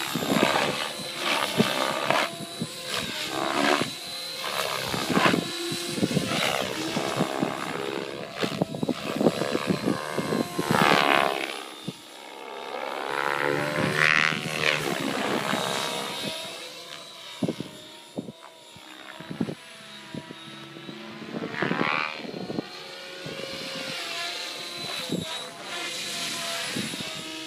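Thunder Tiger Raptor E720 electric radio-controlled helicopter in flight: its rotor blades whoosh and its motor whines, the sound swelling and fading again and again as the helicopter moves about, with quick surges in the first half.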